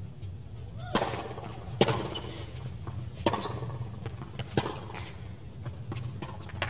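Tennis ball hit back and forth in a hard-court rally: sharp racket strikes and ball bounces about every second, four of them standing out, over a low steady stadium background.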